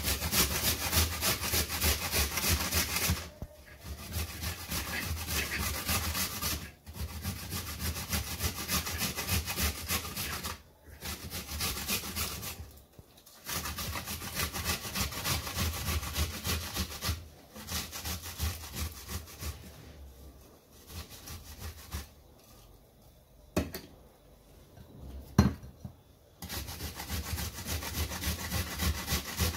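Ripe tomatoes being grated on a stainless steel box grater: fast, steady rasping strokes in runs, broken by short pauses. About two-thirds of the way through the strokes go quieter, and there are two sharp knocks near the end, the second the loudest sound here.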